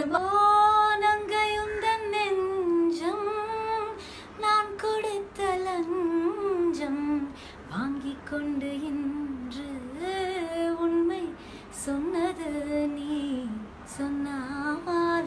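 A woman singing a slow melody solo, holding long notes that slide between pitches, with short breaths between phrases.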